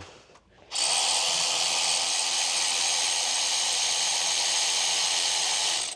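A steady, loud hiss of a pressurised jet, starting about a second in and cutting off sharply just before the end.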